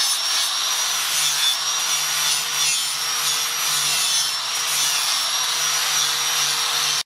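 Handheld angle grinder with an abrasive disc running steadily while grinding the edge of a steel knife blade. A constant high motor whine sits over the rasping hiss of the disc on the metal.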